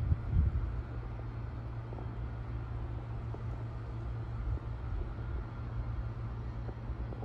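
Steady low rumble of outdoor background noise, with a faint hiss above it and a few soft ticks.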